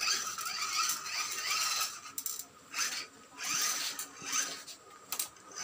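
Electric motor and gearbox of a children's ride-on toy motorcycle whirring in short spurts, starting and stopping several times.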